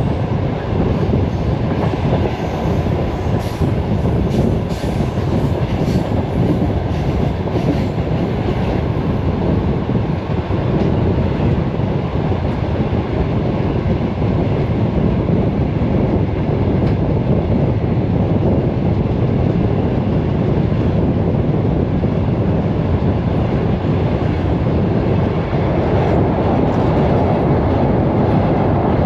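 Passenger train running at speed, heard from inside a carriage: a steady rumble of wheels on the rails, with a short run of sharp clicks a few seconds in. It grows louder near the end as the train runs onto a steel truss bridge.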